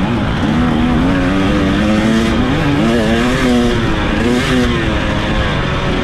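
An off-road racing engine running hard. Its pitch rises and falls over and over as the throttle is worked over rough ground, under heavy wind and terrain noise.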